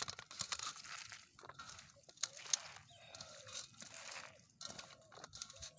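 Hands squeezing and kneading salted, sliced bitter gourd in an aluminium basin, pressing out the bitter juice: a wet, noisy rustle in repeated bursts. A short pitched call slides down briefly about three seconds in.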